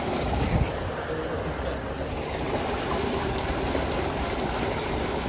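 Steady rush of water flowing in a farm irrigation channel and concrete trough, with a low steady rumble underneath.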